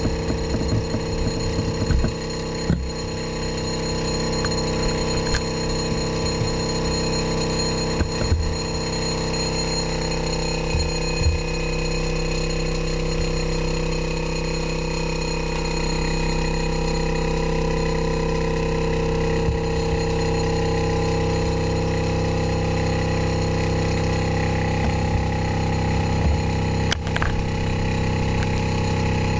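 Small gas-fired free-piston Stirling engine running with a steady hum at a fixed pitch over a faint hiss, while generating electricity. There are a few soft low knocks in the first ten seconds or so.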